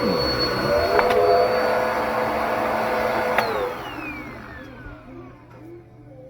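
Upright vacuum cleaner, a Bissell Powerlifter Pet, running with a steady high whine. It is switched off with a click about three and a half seconds in, and the motor spins down with a falling whine.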